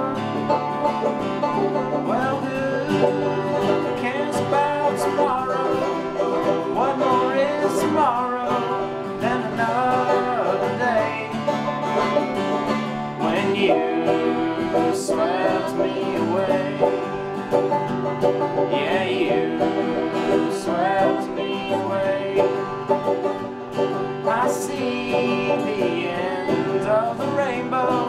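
Acoustic guitar strummed and banjo picked together in a bluegrass-style tune, with a young man singing over them.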